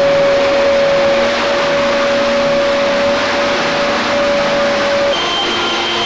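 Wet/dry shop vacuum running steadily, its motor holding one pitch while it sucks floodwater off the floor through the hose. About five seconds in it gives way to a handheld leaf blower running, with a higher whine.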